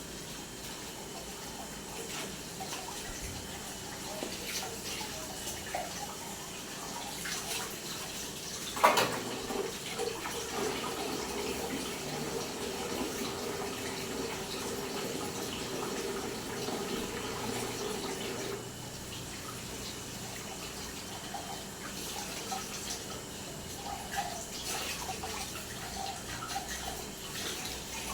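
Water running from a tap into a sink, steady throughout, with occasional light knocks and one sharper knock about nine seconds in.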